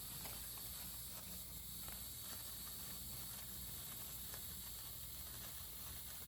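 Faint steady hiss with a low rumble and no distinct events.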